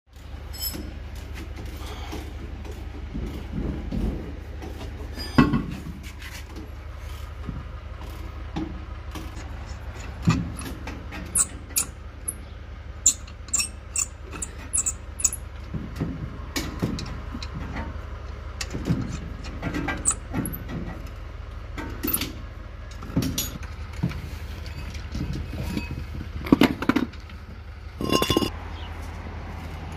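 Metal clinks and knocks of hand tools and wheel nuts while a Toyota Hilux rear wheel is refitted: nuts threaded onto the studs and wrenches picked up and set down, over a steady low hum.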